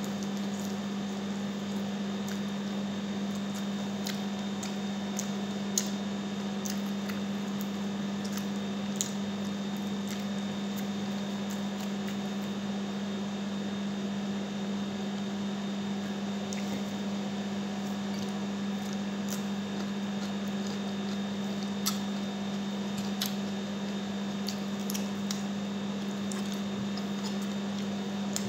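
Close-up eating sounds of chicken eaten by hand: chewing, wet lip smacks and scattered sharp clicks. A steady low hum runs underneath throughout.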